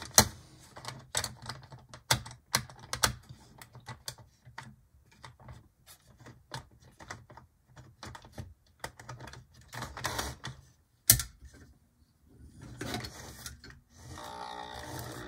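Rapid irregular plastic clicks and taps as a Tyco HO-scale F9A locomotive is worked onto plastic sectional track by hand, its wheels clicking on the rails. About 14 seconds in, a steady mechanical whir starts as the locomotive's Powertorque motor begins to run.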